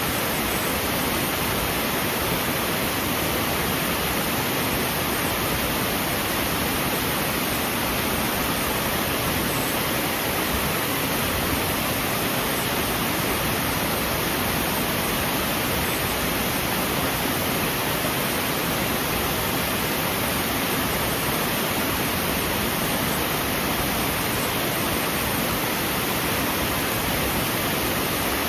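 Waterfall: a steady, unbroken rush of falling water with no changes.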